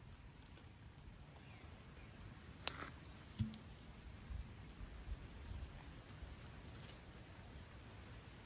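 Faint outdoor ambience. An insect gives a short, high, buzzy chirp that repeats about once a second, and a light click and a soft knock come about three seconds in.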